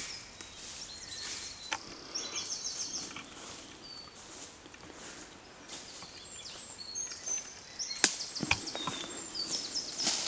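Footsteps shuffling and crunching through dry fallen leaves in woodland, with small birds chirping and whistling in the trees. About eight seconds in there is a single sharp crack, the loudest sound.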